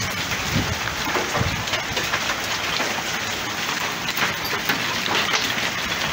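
Heavy rain with small hail pelting down: a steady hiss dotted with many sharp ticks of hailstones striking.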